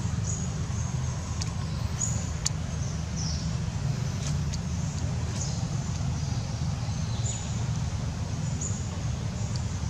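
Outdoor ambience: a steady low rumble with about six short, high bird chirps scattered through it and a few faint clicks.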